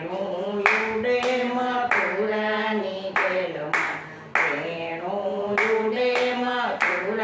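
Two women's voices singing a Gujarati devotional bhajan in unison, with no instruments, while they clap their hands in time, a clap about every 0.6 seconds.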